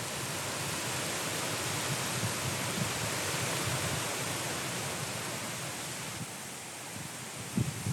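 Strong, gusty wind rushing through a riverside field, swelling and then easing a little near the end, with a few low thumps of wind buffeting the microphone just before it ends.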